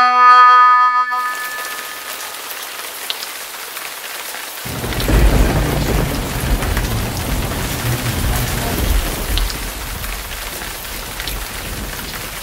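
Heavy rain pouring down, with a long low rumble of thunder that starts suddenly about five seconds in and rises and falls. A harmonica chord dies away in the first second.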